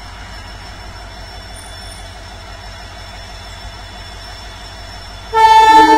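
WDG4D diesel locomotive idling with a low, steady rumble; about five seconds in its two-tone air horn sounds, loud and sustained, with the second tone joining a moment after the first, signalling departure.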